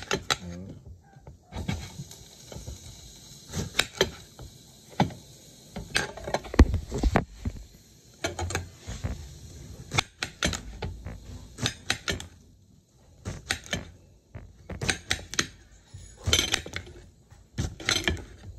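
Knife slicing through a cucumber and knocking on the cutting board with each stroke: irregular clusters of sharp chops with short pauses between.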